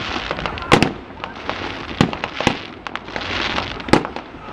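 Aerial fireworks shells bursting: four loud bangs about a second apart, with smaller pops between them and a short burst of crackling near the middle.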